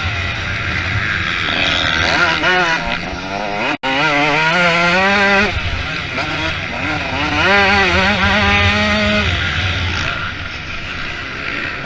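Motocross bike engines revving hard, the pitch rising and falling again and again with throttle and gear changes, cut off briefly about four seconds in.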